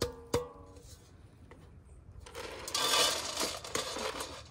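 A stainless steel rabbit food bowl knocked at the start, ringing briefly, then from about halfway dry feed pellets rattling and hissing into the metal bowl as the rabbit is fed.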